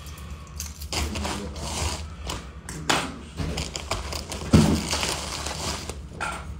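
Handling noise from a heavy metal chain and a plastic mailer bag: rustling and light clicks, with one louder thump about four and a half seconds in, over a faint steady low hum.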